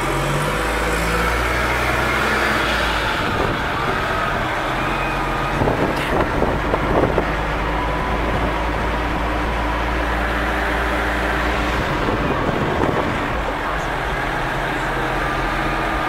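Steady road and engine noise of a 2005 Pontiac Vibe cruising on a highway, heard from inside the cabin, with a low rumble and a steady engine hum. A few brief knocks come about six seconds in.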